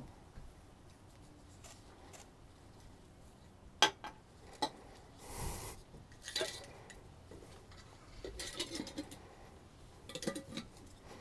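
Soil being poured from hand-held containers into a potted tree's planter: scattered clinks, knocks and scrapes of the containers against each other and the pot, with a sharp knock about four seconds in and a few brief rustles of pouring soil.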